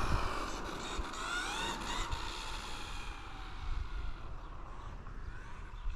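Electric drive motor of a 1/12-scale RC desert truck whining as it is driven, its pitch rising several times in the first couple of seconds as it accelerates, then fading as it gets farther off, over a low rumble of tyres or wind.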